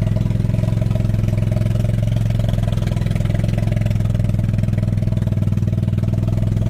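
A small engine running steadily at an even speed, a constant low hum that does not rise or fall.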